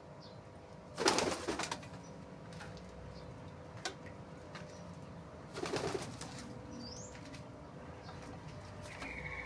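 Pigeons taking off, with two short bursts of clattering wingbeats: one about a second in and another about five and a half seconds in.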